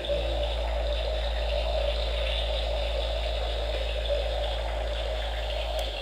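A Hasbro Spengler's Neutrona Wand toy playing its proton-stream firing effect through its built-in speaker while the intensify button is held: a steady electronic rushing noise over a deep hum. The deep hum drops away near the end.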